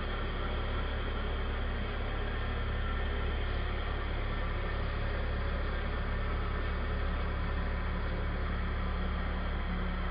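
Horizontal CNC router spindle running steadily while its cutter mills a block of white foam: a continuous low drone under an even hiss.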